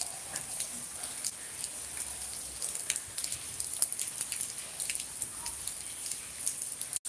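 Steady rain falling: an even hiss with many irregular ticks and spatters of drops hitting surfaces.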